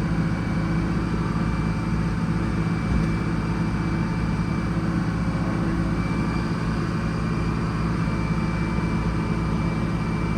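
Sawmill engine running steadily at a constant speed, with an even drone and no change in load.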